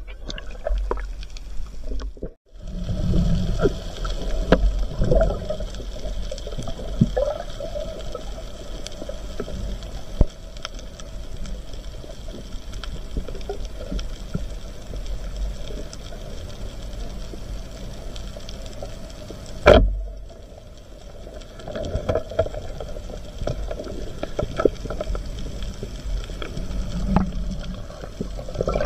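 Underwater sound on a coral reef: a steady low rumble with many small scattered clicks and crackles. It drops out briefly about two seconds in, and there is one sharp knock about twenty seconds in.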